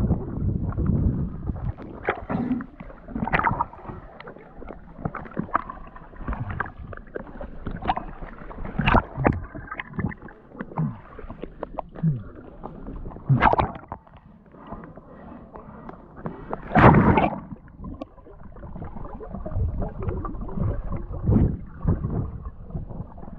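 Muffled water sloshing, gurgling and splashing from a diver moving in the water, coming in irregular bursts, with the biggest splashes about halfway through and again a few seconds later.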